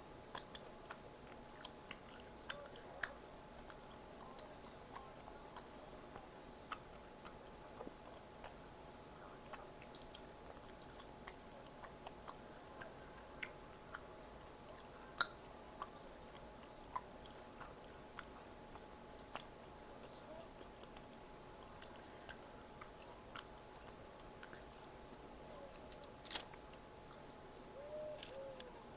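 Close-miked eating sounds: a person chewing and biting food, with many irregular sharp clicks and crunches. One click about 15 seconds in is the loudest, another stands out near 26 seconds.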